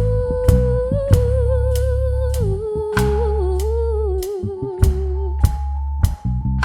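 Live soul band playing an instrumental break with no vocals: drums keep a steady beat under bass guitar. A sustained, wavering melodic line above them steps down in pitch partway through.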